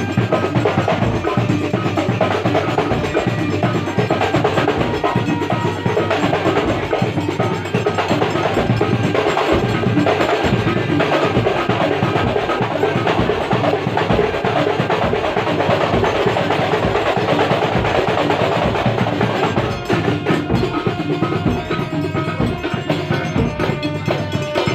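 A kuntulan percussion ensemble plays a fast, dense rhythm of frame drums over steady low bass-drum beats. The playing thins a little about twenty seconds in.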